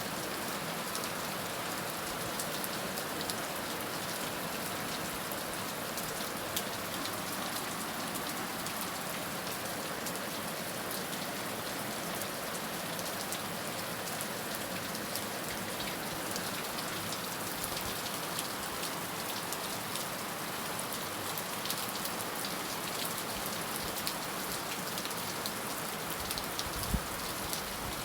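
Heavy rain falling steadily, a dense even hiss with many sharp drops pattering on a surface.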